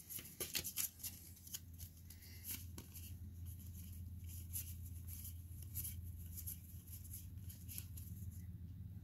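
Pokémon trading cards flipped through by hand, one card slid off the stack at a time: faint soft clicks and slides, more of them in the first few seconds. A low steady hum runs underneath.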